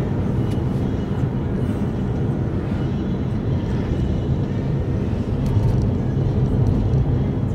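A car driving along, its road and engine noise making a steady low rumble.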